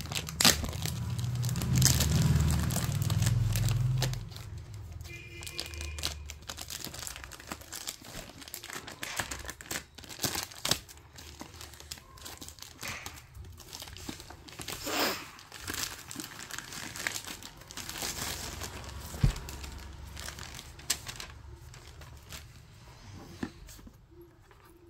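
Clear plastic wrapping crinkling, crackling and tearing as hands peel it off a cardboard gift box, with music in the background.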